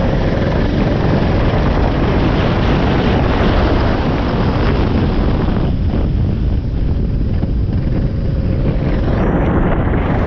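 Racing kart engine running at speed, half buried under heavy wind buffeting on the microphone, with the highs dropping away briefly about halfway through.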